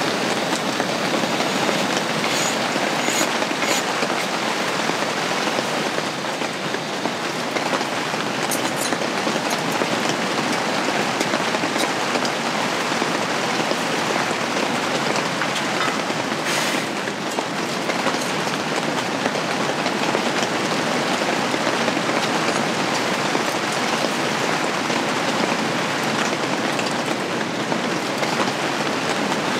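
Steady rain falling on a camping shelter's fabric roof, a dense, even hiss, with a few faint light clicks.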